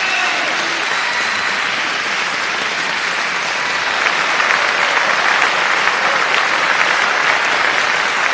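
Applause from a crowd: dense, steady clapping that swells a little about halfway through.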